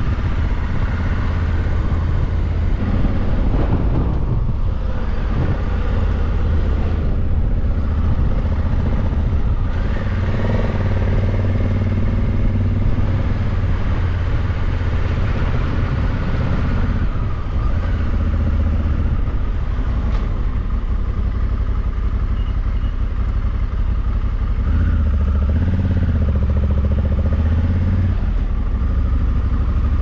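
Honda CRF1100L Africa Twin's parallel-twin engine running as the motorcycle rides along, its note shifting up and down several times.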